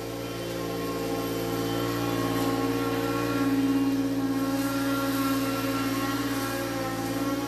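Engine of a 2018 Encore Rage 32-inch stand-on zero-turn mower running at a steady cutting speed with its blades engaged, growing a little louder about halfway through.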